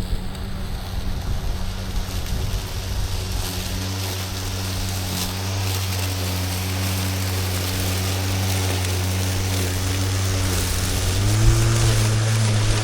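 Battery-powered Milwaukee lawn mower's electric motor and blade running with a steady hum over the hiss of cut grass and wind; the hum steps up in pitch near the end.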